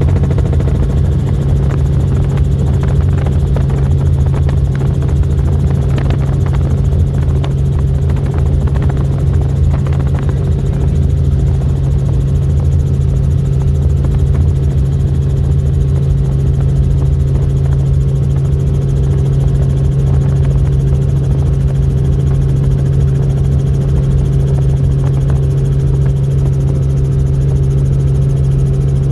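Tour helicopter running steadily: a loud, even drone with a strong low hum, with some light rattling ticks in the first ten seconds.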